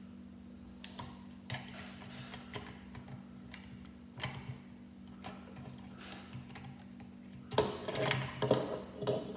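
Small plastic Lego pieces clicking and tapping as they are handled and pressed onto a Lego police helicopter, in irregular single clicks with a busier run of clattering near the end. A steady low hum lies underneath.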